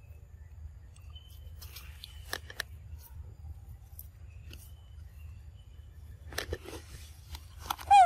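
Scattered short clicks and rustles from young macaques moving on a rock, over a steady low rumble. Just before the end comes a loud, short squeak from a young macaque that falls in pitch.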